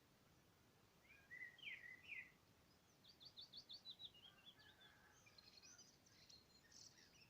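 Faint birdsong: a few chirps about a second in, then a quick run of high, descending notes and more high twittering near the end.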